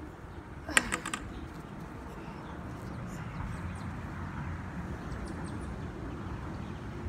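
A color guard flag pole dropped onto a concrete driveway: a quick clatter of several knocks with a brief ring about a second in. A steady low outdoor rumble continues underneath.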